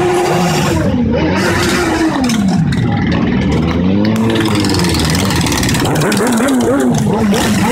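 Motorcycle engines revving as a line of bikes rides slowly past, the pitch rising and falling again and again, over the noise of a clapping crowd.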